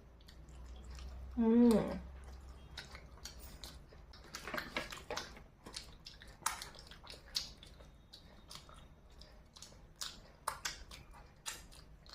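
A person chewing food close to the microphone, with wet mouth clicks and smacks. A brief voiced sound comes a little under two seconds in.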